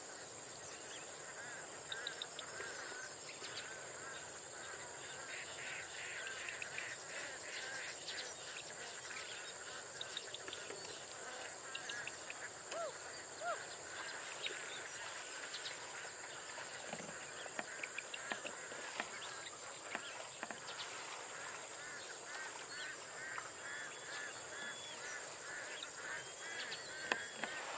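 A flock of domestic laying ducks quacking throughout, many short calls overlapping. A steady high insect drone runs underneath.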